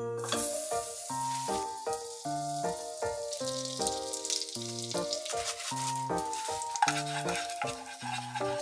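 Oil sizzling in a small frying pan as seasoning is stirred in, under background music with a stepping melody and bass line.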